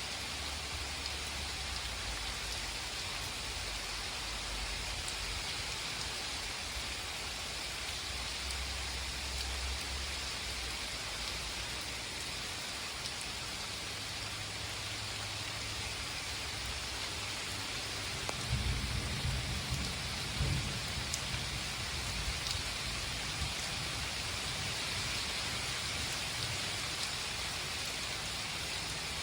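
Thunderstorm: steady, heavy rain pattering on surfaces, with a low rumble of thunder swelling about two-thirds of the way through.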